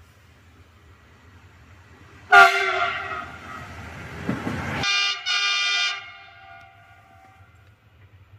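Locomotive horn sounding as the train passes close: a long blast that starts sharply about two seconds in, then a shorter second blast with a brief break in it, over the rumble of the passing locomotive.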